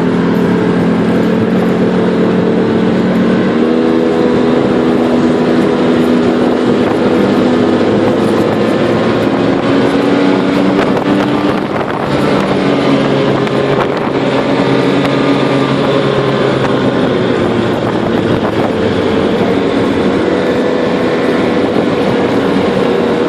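Engine of a vehicle towing a boat on a rope across snow, running steadily under load, its pitch stepping up and down a few times, over a steady rushing hiss.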